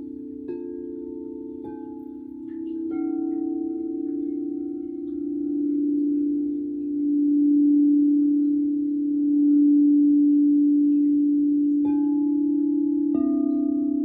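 Crystal singing bowls ringing in long, overlapping sustained tones. A new bowl is struck several times, near the start and twice near the end, and the sound swells and fades in the middle.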